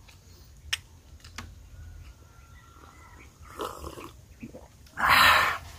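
Hot coffee being slurped from mugs: a few small clicks and a short sip, then one loud slurp about five seconds in.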